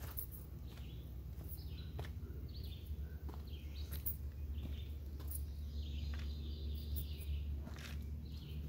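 Footsteps on a rocky dirt forest trail, with birds chirping in short calls and one longer warbling call. A low steady rumble on the microphone runs underneath.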